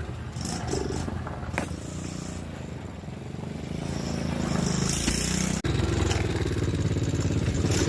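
Small engine of a repaired mini quad (kids' ATV) running, its speed rising and falling a few times.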